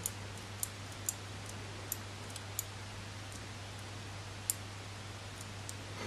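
A cut-open Cherry MX Blue keyboard switch, cap off, clicking faintly several times at uneven intervals as its stem is pressed; each click is the white click jacket snapping down.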